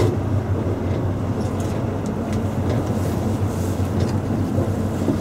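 A boat's engine running steadily with a constant low hum.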